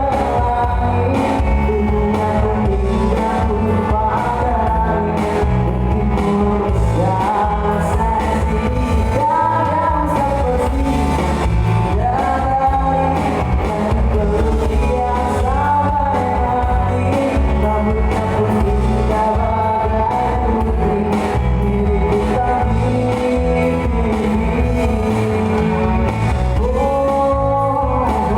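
A band playing a song with a singer, over a steady, heavy bass line.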